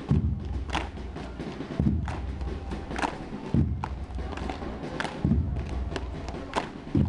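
A drill team stamping and clapping in unison on a concrete court: deep thuds about every second and three-quarters, with sharper slaps falling between them.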